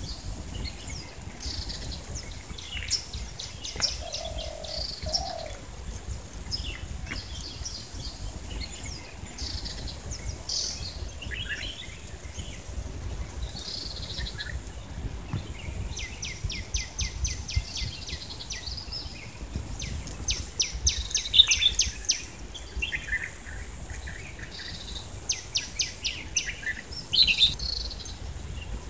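Small birds chirping and twittering, with several fast runs of repeated chirps, the loudest about two thirds of the way through. A low two-note coo, like a dove's, is heard about four seconds in.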